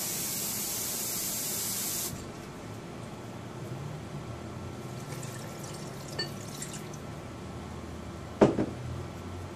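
Water running from a tap into a blender jar of tomatoes and chiles, a steady hiss that cuts off abruptly about two seconds in. A single sharp knock near the end.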